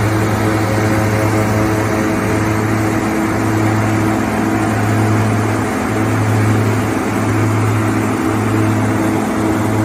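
OXBO green bean harvester running steadily while harvesting: a deep, even engine hum with steady higher machine tones above it.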